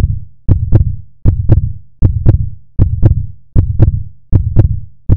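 Heartbeat sound effect: a steady lub-dub double thump, loud and deep, repeating about 78 times a minute.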